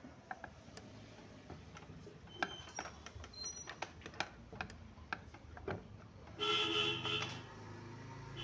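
Light metal clicks and taps as the ceiling fan motor's cover and screws are handled, then a horn sounds loudly for about a second near the end.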